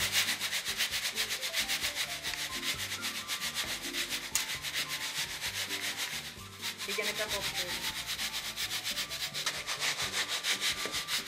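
Triddi, small semolina-and-egg pasta pellets, being shaken in a round wooden-rimmed sieve: a fast, even rasping of pellets sliding over the mesh, several strokes a second, with a brief lull a little past the middle. This is the pasta being sifted to shake off the loose flour.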